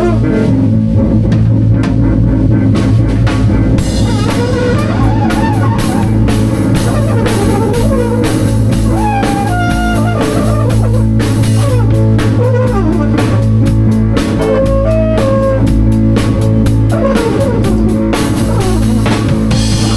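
Live band improvising: a drum kit keeps up steady hits with cymbals while a guitar plays wandering lead lines over a held low bass note.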